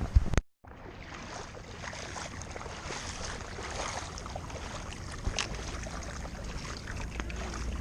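Steady rush of flowing floodwater with some wind rumble on the microphone, broken near the start by a single sharp knock and a brief dropout.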